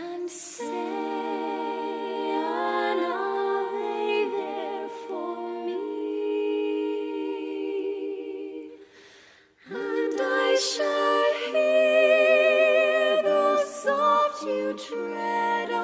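Wordless a cappella vocal music: several voices humming held notes in harmony, with a wavering vibrato. It breaks off briefly about nine seconds in and then starts again.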